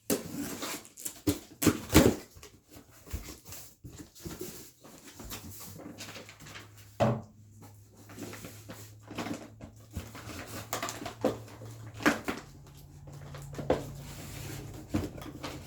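Heavy cardboard-wrapped 500-gram firework cakes being handled and set down: a run of irregular knocks, thumps and rustles, the loudest around two seconds in. A steady low hum starts about five seconds in and rises a step in pitch after about twelve seconds.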